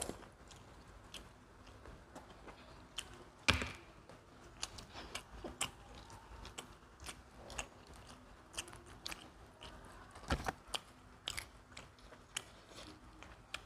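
Close-up chewing and biting of pizza: a run of irregular soft crunchy clicks, with two louder sharp clicks about three and a half seconds in and near ten seconds.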